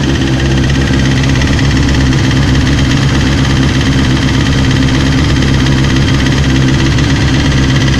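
Engine idling steadily with a fast, regular knock running through it, a knock whose cause is unknown.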